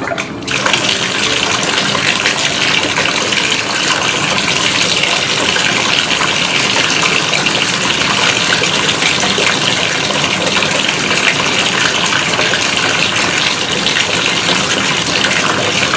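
Water pouring steadily from the faucet of a toy doll bathtub into the tub as it fills, a continuous gush that starts just after the music stops.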